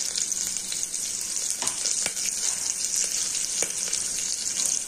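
Tempering sizzling in hot refined oil in a pressure cooker: mustard seeds, cumin, asafoetida and whole green chillies frying. It is a steady high hiss with a few short crackles.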